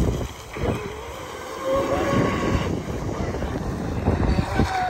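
Electric RC deep-vee racing boat running at speed: its brushless Leopard 4092 1390KV motor on 6S makes a thin whine that rises in pitch about two seconds in and holds high near the end.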